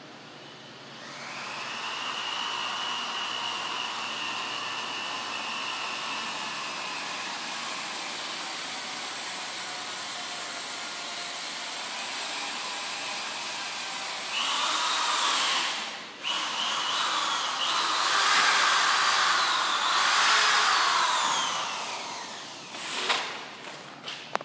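Electric power tool running steadily. About halfway through it gets louder, its pitch rising and falling as it works under load, with one brief break. It stops shortly before a sharp knock near the end.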